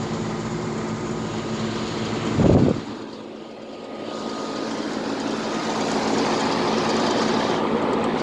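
2004 Tempstar central air conditioner's outdoor condensing unit running: the Copeland scroll compressor and the General Electric fan motor hum steadily. A brief thump comes about two and a half seconds in. After it, the fan's rushing air grows louder.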